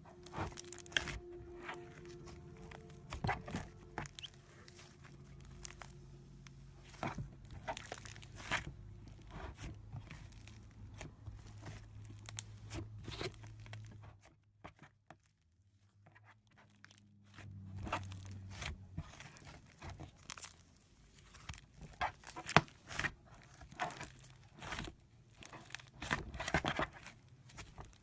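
Slime being squeezed and stretched by hand, giving irregular sticky clicks, pops and crackles, with a brief pause about halfway through.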